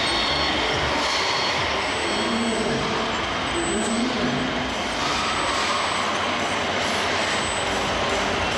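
Radio-controlled scale model trucks running with their electronic sound modules playing diesel-truck engine noise, over the steady hubbub of a busy exhibition hall.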